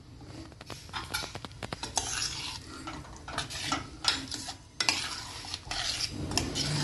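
Metal ladle stirring a thick raw banana curry in an open pressure cooker, scraping and clinking against the pot's sides and bottom in repeated irregular strokes.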